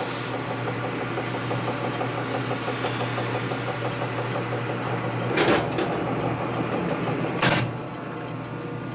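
A shop machine running steadily with a low hum while a part is spun and ground with a stone. Two sharp clacks come about two seconds apart near the end, and the running is a little quieter after the second.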